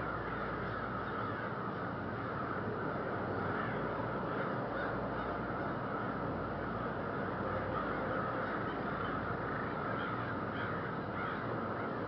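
A flock of crows cawing, many calls overlapping into a continuous chorus, over a steady background noise.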